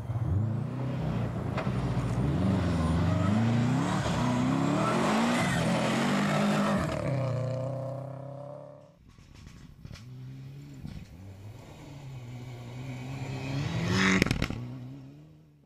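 Rally car engines on a gravel stage, revving up and down hard through gear changes, loudest over the first eight seconds. After a quieter stretch of engine, a car passes close about fourteen seconds in.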